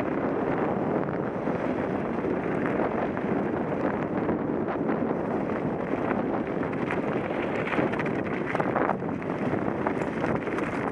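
Steady wind rushing over a helmet camera's microphone as a mountain bike rolls downhill, with the tyres crunching over gravel and rocks and the bike rattling in a stream of small clicks, busier in the second half.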